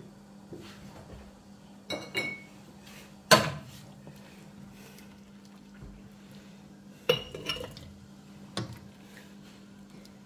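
A metal ladle clinks and knocks against the side of a pot of cooked quince compote as it scoops out fruit and syrup. There are about five sharp knocks, the loudest about three seconds in, over a faint steady low hum.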